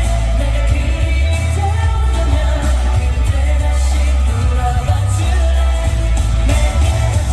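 Live pop song with heavy bass and singing, played loud through a concert sound system.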